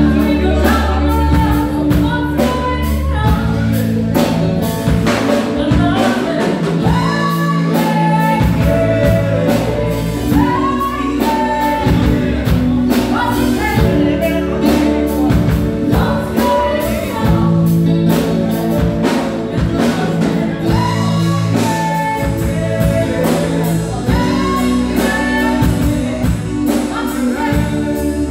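Live band playing a song: drum kit, electric guitars and keyboards under a lead vocalist singing.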